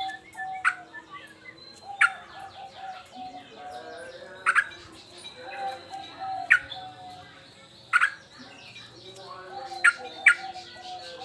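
Male yellow-vented bulbul (trucukan) singing in agitated, persistent full song: rapid bubbling, warbling phrases punctuated by about seven loud, sharp short notes.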